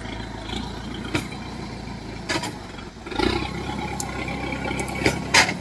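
Engine of a farm hauler loaded with rice sacks, labouring as it climbs a steep bank. It runs louder and heavier about three seconds in, with several sharp clanks from the cart.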